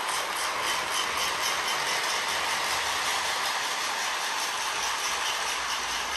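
Lionel Nickel Plate Special O-gauge toy steam locomotive and tender running steadily around FasTrack, a continuous, even rattle of the motor and wheels on the track.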